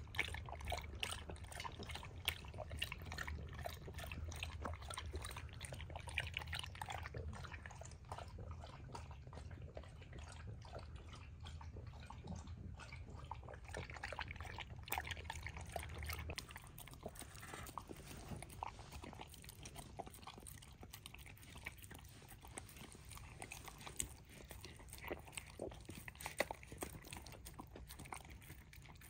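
Great Pyrenees dog lapping water and eating wet food from a stainless steel bowl: quick wet licking and chewing clicks, with a low background hum that stops about halfway through.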